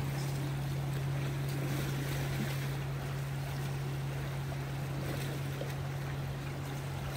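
A boat engine's steady low drone, with waves washing against the breakwater rocks.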